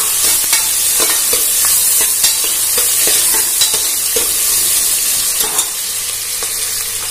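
Sliced onions and green chillies sizzling in hot oil in an aluminium pressure cooker. They are being stirred with a steel ladle that scrapes and clicks against the pot every half second or so over a steady frying hiss.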